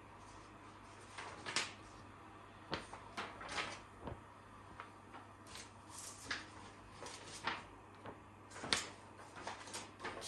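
Irregular clicks, taps and short rustles of small objects and packaging being handled, over a faint steady hum.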